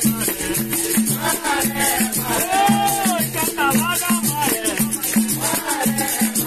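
Capoeira roda music: a berimbau plays a steady rhythm that alternates between two notes, with a caxixi rattle shaken along with it and voices singing over the top.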